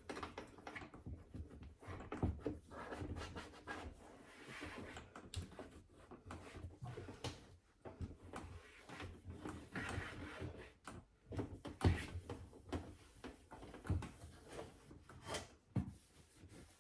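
Wiping and scrubbing a dishwasher by hand with a rag: soft rubbing strokes with scattered knocks and clatter.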